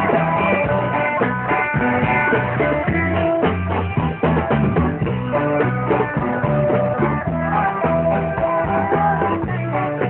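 A live band playing a song: guitars over a bass line and a drum kit keeping a steady beat.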